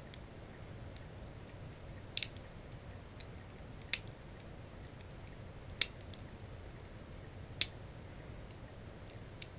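Airsoft BBs pressed one at a time into a rifle magazine, a sharp click each time a round snaps in, four clicks about two seconds apart.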